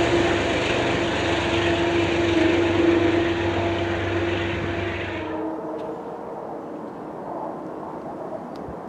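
Locomotive-hauled passenger train moving away: a steady engine drone with a humming tone, slowly fading. It cuts off suddenly about five seconds in, leaving only faint distant rumble.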